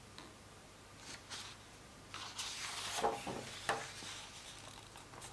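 Quiet rustling of paper and two light knocks a little after three seconds in, from hands holding and handling a hardback picture book.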